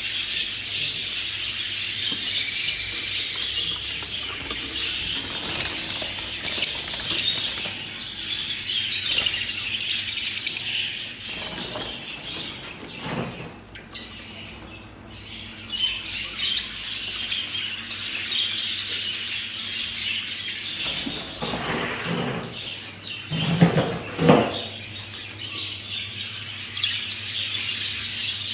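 A group of budgerigars chirping and chattering continuously, with a loud, fast rattling trill about nine to ten seconds in. A few low thuds come near the middle and later.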